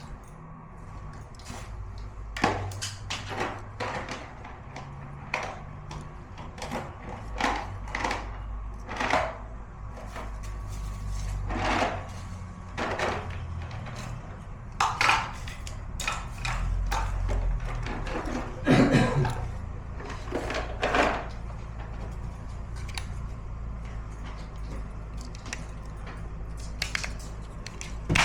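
Irregular knocks and clicks of hand work with tools and hardware, scattered over a low steady hum, with a louder knock about 19 seconds in.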